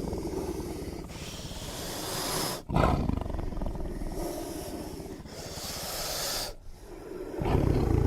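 Imagined Dilophosaurus calls made by layering big-cat, crocodile and other animal recordings: a run of deep, rumbling growls and roars, with a loud new roar starting about a third of the way in and another near the end.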